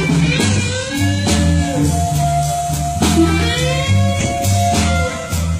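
Blues played on guitar: a lead line with bent notes gliding up and down over a low, stepping bass line.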